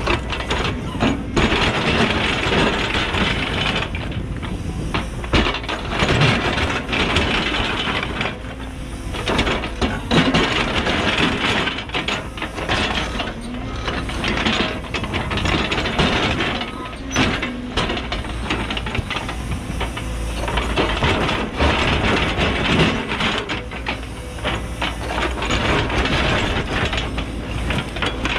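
Cat 314E excavator's diesel engine running under load while its ripper tooth scrapes and cracks through extremely hard rock, breaking rock grinding and tumbling in repeated harsh bouts of a few seconds each, with sharp knocks between.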